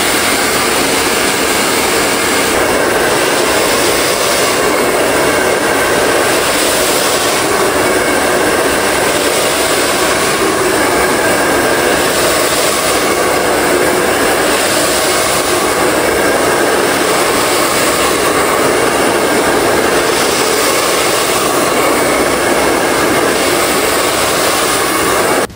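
Handheld hair dryer blowing steadily at close range, its rush swelling and easing every two to three seconds. It stops suddenly at the very end.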